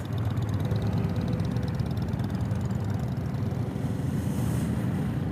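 BMW F800GS parallel-twin motorcycle engine running steadily at low speed in a slow roll, with other motorcycles running close ahead.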